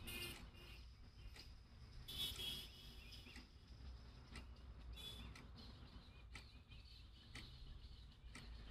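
Faint ambience with a few short, high bird chirps, the clearest about two seconds in and again about five seconds in.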